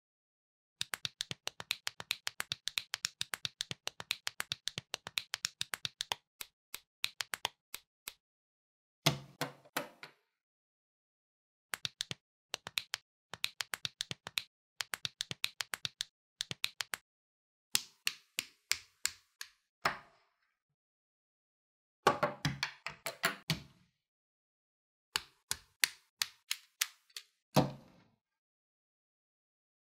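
Small plastic building bricks clicking and snapping together as a LEGO-compatible dinosaur skeleton is assembled. There is a quick run of clicks for several seconds, then shorter groups with pauses, and a few louder knocks.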